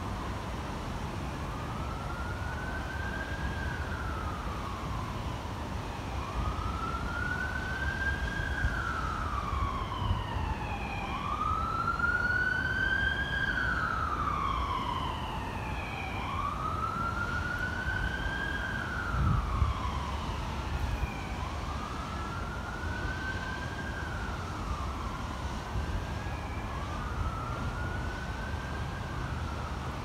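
Emergency vehicle siren in wail mode, rising and falling slowly about every four to five seconds and loudest around the middle; from about twenty seconds in, a second siren wail overlaps out of step. Low wind rumble on the microphone runs underneath, with a brief low thump about nineteen seconds in.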